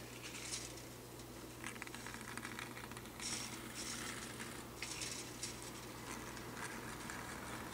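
Faint rustling and scratching of fine copper magnet wire being pulled off a small clock solenoid coil by hand, over a low steady hum.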